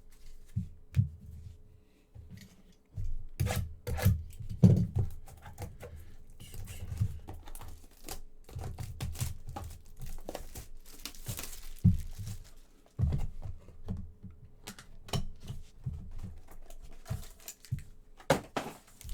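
Football trading-card packs being torn open, their wrappers crinkling, with the cards and packs handled in irregular short knocks and rustles.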